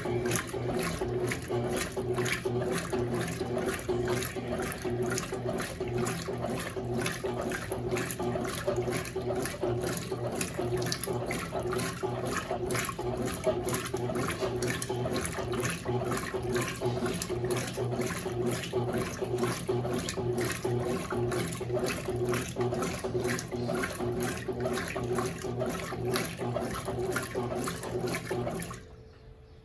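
Consul CWS12 top-loading washing machine agitating a load of jeans in rinse water: the motor hums steadily while the agitator churns the water in an even, repeating rhythm. The churning stops abruptly about a second before the end.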